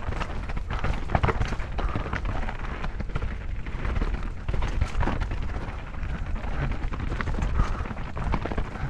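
Mountain bike rolling down a steep rocky trail: tyres crunching over loose stone and gravel, with frequent knocks and rattles from the bike, over a steady low wind rumble on the camera's microphone.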